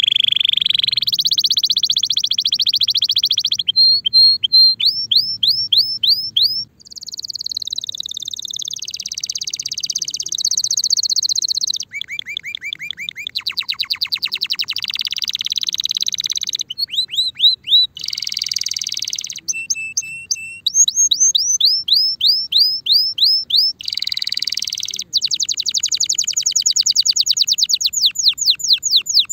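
Timbrado canary singing a continuous song of fast rolls and trills, each run of rapidly repeated notes held one to three seconds before switching to the next, some runs made of rising chirps. It is the full song of a male ready for mating.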